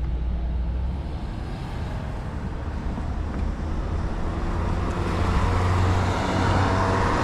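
Road traffic: a motor vehicle's engine hum and tyre noise growing louder as it approaches, loudest near the end.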